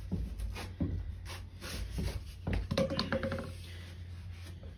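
Hands handling a lawnmower's oil dipstick: scattered clicks, taps and rubbing, with a short squeak about three seconds in, over a steady low hum.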